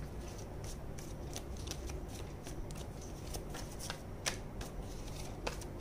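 A deck of tarot cards being shuffled by hand: a run of soft, quick card flicks and taps, with a couple of sharper snaps about four and five and a half seconds in.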